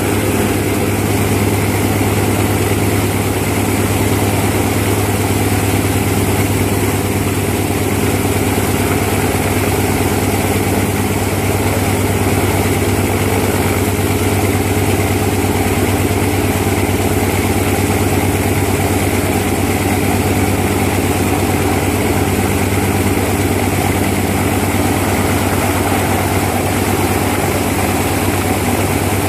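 Antonov An-2's nine-cylinder Shvetsov ASh-62 radial engine running steadily at idle, turning the four-blade propeller, with no change in speed.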